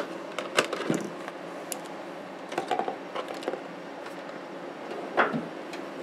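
Scattered clicks and knocks of hand tools being moved about in a cluttered tool drawer, with a louder knock about five seconds in.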